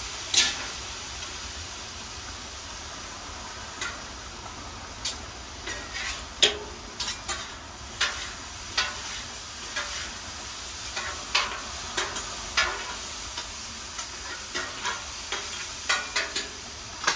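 Ribeye steak sizzling on a Blackstone flat-top griddle with soy sauce just added, while metal utensils give irregular sharp clicks and taps on the steel cooking surface as the steak is cut up and moved around.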